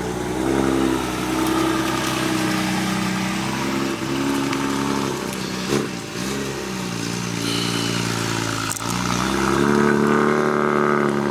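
Car engine under hard acceleration on a race track, its pitch climbing, dropping briefly twice around the middle and about two-thirds in, and climbing again.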